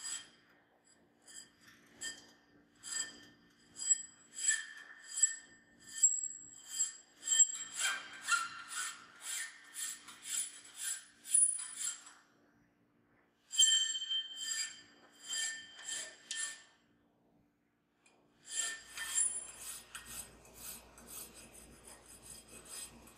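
Flat hand file rasping across the edge of a steel part held in a bench vise, cross filing to rough the surface: even strokes about two a second, each with a faint metallic ring. The filing pauses twice.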